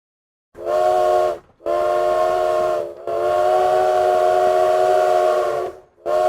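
Steam train whistle blowing four blasts (short, medium, long, short), a chord of several steady tones with a breathy hiss.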